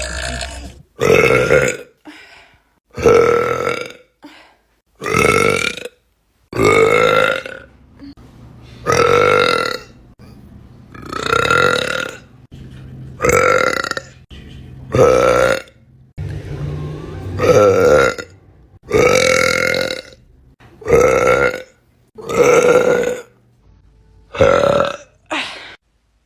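A person burping loudly over and over, one long voiced burp about every two seconds, each with much the same tone.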